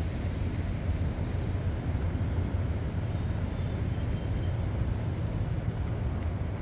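Steady low rumble of wind buffeting the microphone, with no break.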